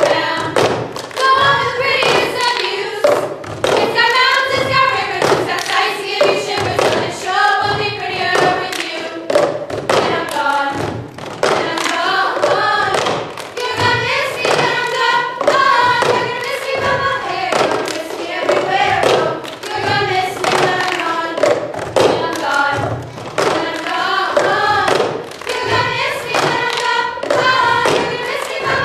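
A group of girls singing a melody together while keeping the rhythm of the cup game: cups thumped, tapped and slid on a tabletop between hand claps, a knock every fraction of a second under the song.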